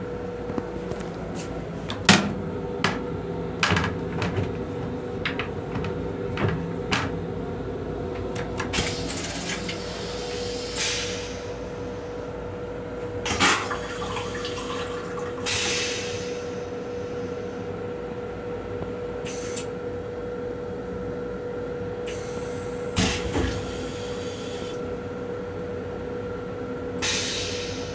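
Metro-North M7 railcar toilet flushing: short rushes of water and air clearing the stainless steel bowl, over a steady hum. Scattered sharp knocks and rattles come through, most of them in the first few seconds.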